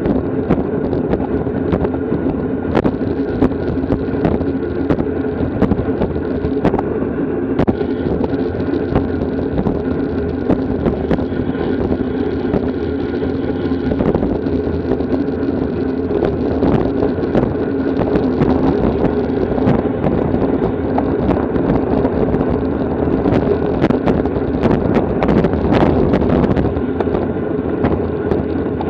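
Wind rushing over the microphone of a bike-mounted camera while riding in a bicycle race: a loud, steady rumble with many short clicks and knocks scattered through it.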